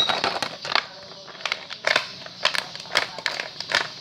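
Irregular crinkling and clicking as squishy toys are handled.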